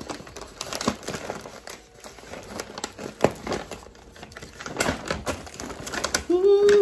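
Brown paper meal-kit bag rustling and crinkling as it is opened and handled, with plastic ingredient packets rustling inside, in irregular crackles with a few louder bursts.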